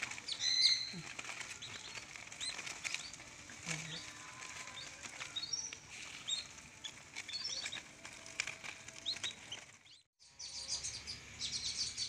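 Whistling duck ducklings peeping: many short, high chirps overlapping from a crowded flock.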